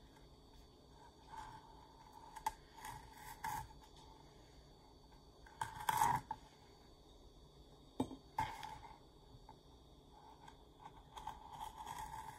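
Small knife slitting vanilla beans lengthwise on a plastic cutting board: scattered soft scrapes and taps of the blade against the pod and board, with louder knocks about six and eight seconds in.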